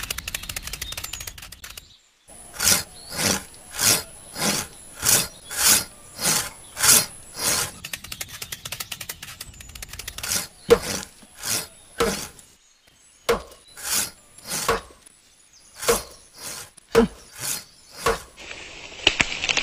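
Wood being sawn: a long run of even rasping saw strokes, about two a second, which turn slower and more spaced out in the second half.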